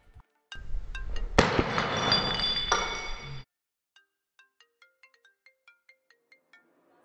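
A glass coffee jar smashing on a hard floor: a loud crash about a second and a half in, with shards ringing and scattering, then cut off suddenly. Soft, sparse music notes follow.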